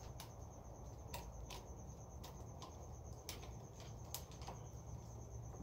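Sparse, light metallic clicks and clinks from hand tools and parts being worked at the front brake master cylinder on a motorcycle's handlebar, about eight over the few seconds. Under them is a steady, faint, high-pitched trill.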